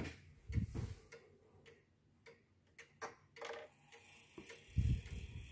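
Japy Frères pendulum wall clock movement ticking, with a few low thumps from hands handling the clock while its minute hand is turned forward to the quarter.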